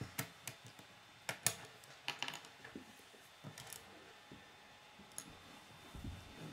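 K'nex plastic rods and connectors clicking and tapping as they are snapped together and set down on a wooden table: scattered sharp clicks, more of them in the first few seconds, then a duller low knock near the end.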